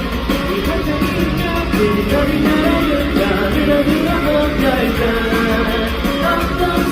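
Rock band playing live at a sound check, with a male lead vocal singing over guitar-driven backing.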